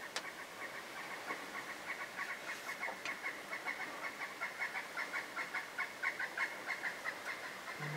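A fast, continuous series of high chirps from wildlife in the field, several a second, with one sharp click about a quarter second in.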